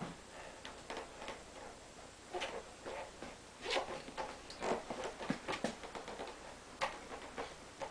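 Faint, irregular knocks and clicks as a malamute shifts its paws and weight on a wobble board, the board rocking and tapping against the floor, about a handful of separate taps.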